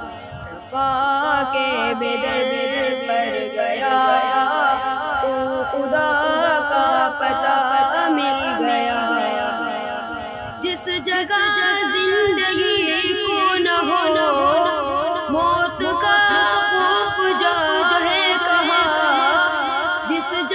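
Devotional a cappella naat singing: layered voices carry a wavering, heavily ornamented melody. About halfway through, a lower voice part enters beneath the melody.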